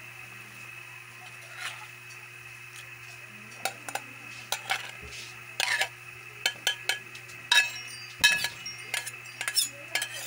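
A metal spoon scraping and clinking against a metal bowl and wok as boiled mung beans are emptied into simmering broth. Sharp, irregular clinks, mostly from about three and a half seconds in.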